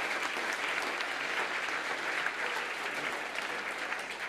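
Audience applauding: a dense, steady patter of many people clapping.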